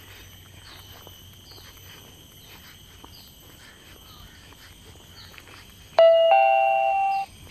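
A phone fitness-tracking app's two-note notification chime, sudden and loud, sounding about six seconds in and lasting a little over a second, the cue before its spoken workout update. Before it, faint outdoor ambience with small chirps.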